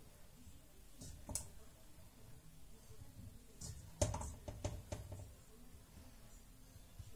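Faint, light clicks and knocks of raw potato slices being picked out of a stainless steel bowl and laid in a glass baking dish, with a quick cluster of taps about four seconds in.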